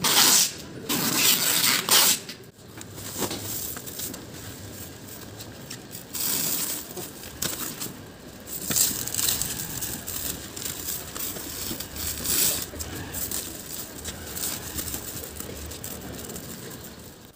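Clear plastic stretch film being pulled off the roll and wound around a padded motorcycle, crackling and rustling in several bursts, loudest in the first couple of seconds.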